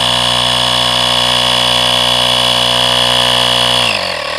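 Parkside PAK 20-Li 20 V cordless tyre compressor running steadily as it pumps up a motorcycle inner tube. Near the end its pitch drops and it winds down, shutting off once it has reached the pressure set on it.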